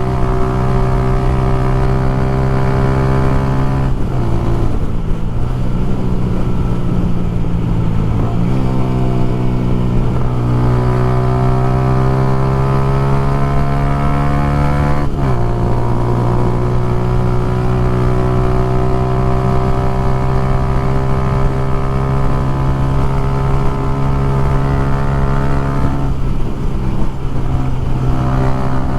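A vehicle's engine running steadily on the road. Its pitch drops briefly three times, at gear changes about four, eight and fifteen seconds in, and climbs slowly again after each.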